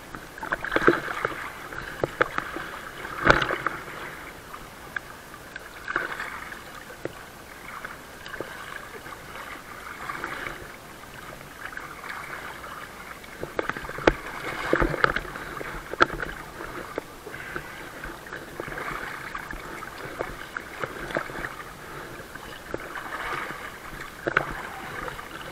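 Lake water lapping and sloshing against a floating wakeboard right at the water surface, with irregular louder splashes and small knocks, the strongest about 3 seconds in and again around 15 seconds in.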